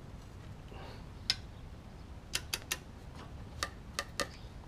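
Faint, sharp clicks from a click-type torque wrench tightening an outboard propeller nut: about seven at uneven intervals, some in quick runs, as the wrench ratchets and clicks over at its 40-pound setting. The click means the nut is tight.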